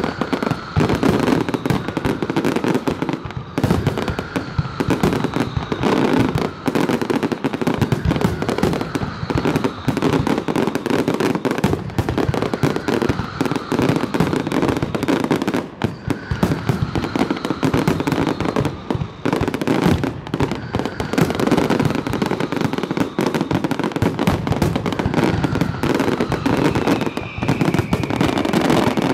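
Fireworks display going off in a dense, unbroken barrage of bangs and crackles, with faint falling whistles over it.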